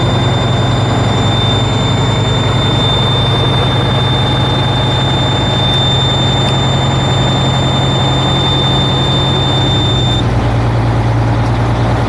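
Tractor-trailer diesel engine running at a raised idle to build air pressure, with the cab's low air pressure warning buzzer sounding a steady high tone. The buzzer cuts off about ten seconds in, the sign that the air pressure has passed 60 psi.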